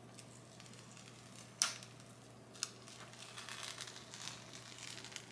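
Clear DTF transfer film being peeled off a heat-pressed print on a hoodie after it has cooled. A sharp click comes about one and a half seconds in and a smaller one a second later, then a steady crinkling rustle as the plastic sheet is pulled away.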